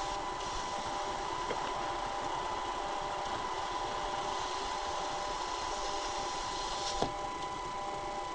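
Steady car noise, with a constant thin electrical whine over it and one short click about seven seconds in.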